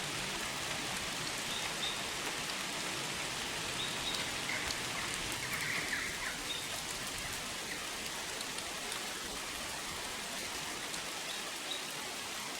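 Steady, even hiss like falling rain, with a few faint short chirps.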